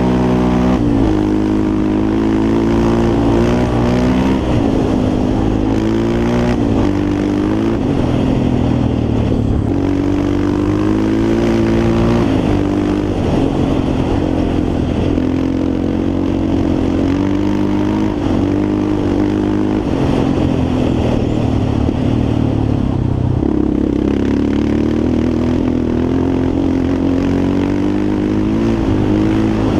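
Yamaha Raptor 350 quad's single-cylinder four-stroke engine running under load, its pitch rising and falling again and again as the throttle is opened and eased off while riding.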